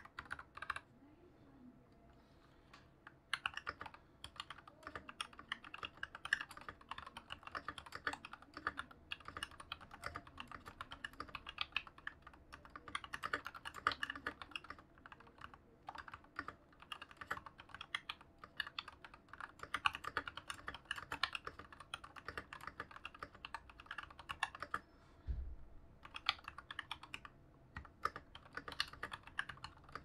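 Typing on a Tom980 mechanical keyboard fitted with Jwick red linear switches and PBT XDA-profile keycaps: rapid keystroke clacks. The typing lets up briefly about a second in and pauses again near the end, where one soft low thump is heard.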